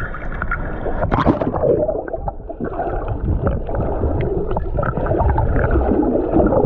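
Seawater gurgling and sloshing right against the microphone, muffled, with a few sharp splashy clicks about a second in.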